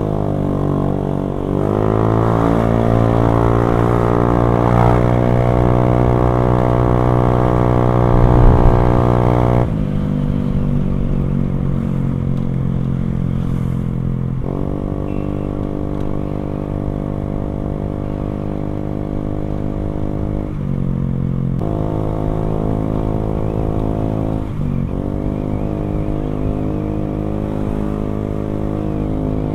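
Motorcycle with an aftermarket NOB1 exhaust, ridden and accelerating: the engine note climbs, drops and climbs again about a second and a half in, then rises steadily until about ten seconds in. After that the throttle eases and it runs at a steadier pitch, with brief dips and pickups near fifteen, twenty-one and twenty-five seconds in, like gear changes.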